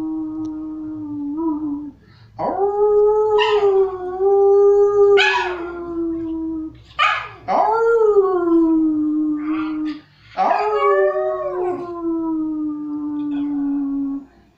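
A dog howling in long, held notes at a steady pitch: four howls in a row with short breaks between them, several opening or broken by a sharp rising yip.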